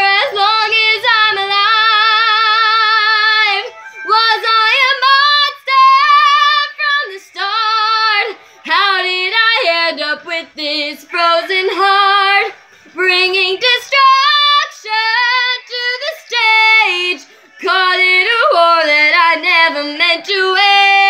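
A young female voice singing solo, holding long belted notes with vibrato, in phrases broken by short breaths. No accompaniment is heard.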